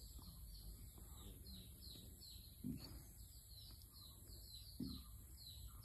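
Faint bird chirping: a steady run of short, high, falling chirps, about three a second. Two brief low sounds come nearly three seconds and nearly five seconds in.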